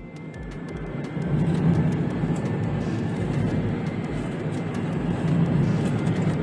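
Engine and road noise inside a moving Toyota Voxy minivan: a steady low drone that fades up over the first second or so.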